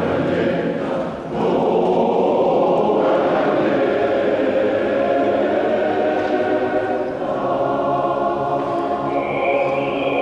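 Large male choir singing in harmony, holding long sustained chords, with a brief breath about a second in before the singing swells again.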